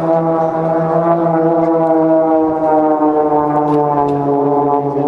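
Aircraft flying past, its engine drone a steady, horn-like tone that slowly falls in pitch.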